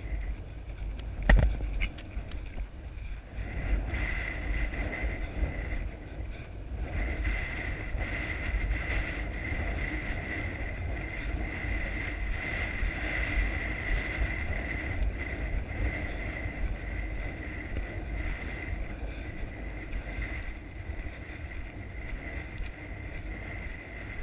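Wind rushing over a head-mounted camera's microphone as a horse canters across grass, with a steady rumbling rush throughout. A single sharp knock comes about a second in.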